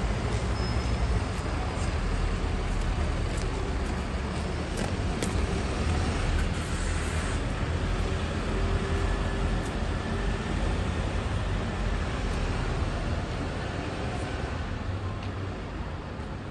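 Alexander Dennis Enviro400MMC double-decker bus running and moving off along the street, a steady low engine rumble mixed with street traffic noise, easing off somewhat near the end.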